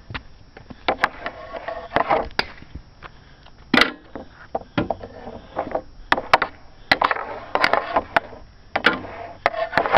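Hockey stick shooting pucks: many sharp clacks of the stick blade striking pucks, scattered irregularly, with noisier scraping sounds of the blade between some of them.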